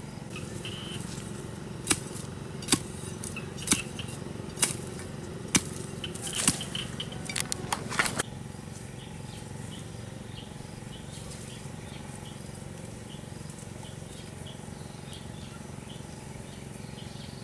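A series of sharp clicks or knocks, about one a second, coming faster and bunched together just before they stop about eight seconds in. After that there is only a steady outdoor background with faint, short high chirps.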